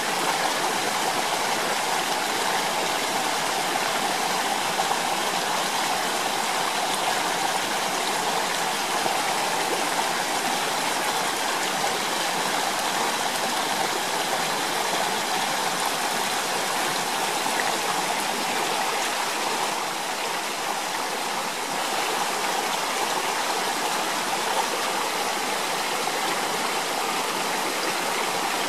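Steady, even rush of running water from a stream.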